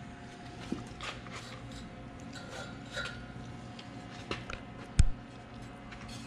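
Light metallic clinks and scrapes from work on a cut exhaust pipe, with one sharp metal knock about five seconds in.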